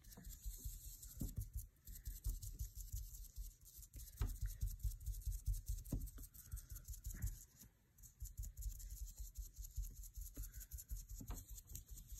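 Foam sponge dabbed up and down on a stencilled wooden board: quick, soft taps several a second, with a short pause about three-quarters of the way through.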